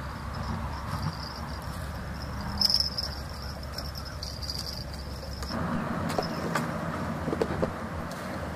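Insects buzzing steadily at a high pitch, over a low rumble of road traffic, with a vehicle passing near the end.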